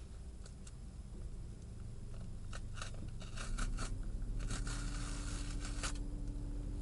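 A parcel's packaging being opened: scattered crinkles and clicks, then a longer tearing rasp about four and a half seconds in. A steady low hum comes in about halfway through.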